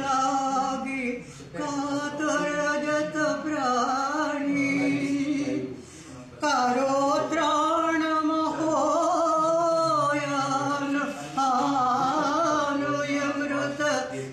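A single voice singing a slow melody unaccompanied, in long held phrases, pausing briefly about a second in and again about six seconds in.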